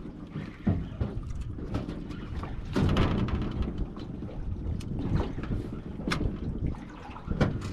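Small boat on open sea water, with a low rumble, wind buffeting the microphone and several irregular sharp knocks.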